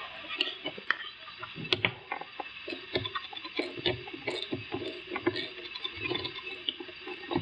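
Light metallic clicks and taps, irregular and close together, from an 8 mm wrench working a bolt loose at an ATV's front brake lever clamp.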